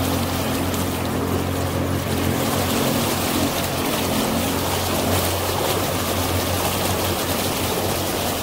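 Motorboat under way: a steady engine drone with water rushing along the hull.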